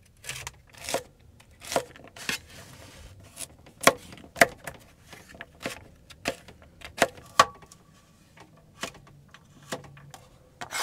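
Chef's knife chopping carrots and celery on a plastic cutting board: a dozen or so sharp knocks at an uneven pace, roughly one a second.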